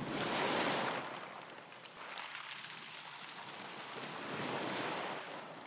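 Ocean surf washing in: a noisy rush of waves that swells at the start, eases off, and swells again about four seconds in.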